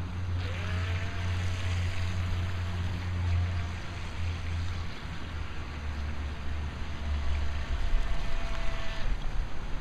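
Small electric RC speedboat motor whining on throttle, its pitch rising as it spins up, with hiss from the propeller and spray. It eases off in the middle, comes back and cuts off sharply near the end, over a steady low rumble.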